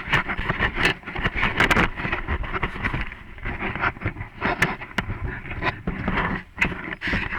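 Mountain bike jolting along a dirt singletrack: a constant uneven rattle of sharp knocks from the bike and camera mount over bumps, over rumbling wind noise on the microphone.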